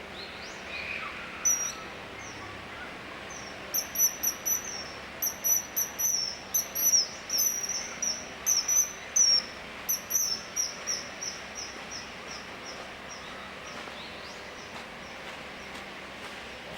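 Common kingfisher calling: a rapid series of short, high, shrill notes, about three a second, starting a few seconds in and tailing off after about eight seconds.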